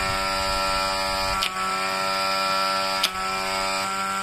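Battery-powered onion-cutting machine's electric motor running with a steady hum. Twice, about a second and a half and three seconds in, a sharp snap as the blade cuts through an onion top, the motor's pitch dipping briefly under the load.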